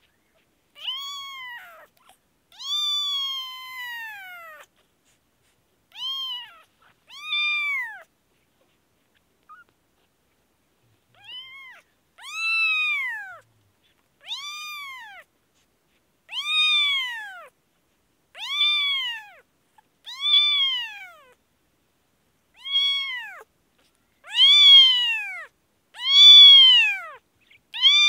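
Newborn kittens mewing over and over while held in the hand to have their eyes cleaned. There are about seventeen short mews, each rising then falling in pitch. They pause briefly partway through, then come louder and closer together near the end.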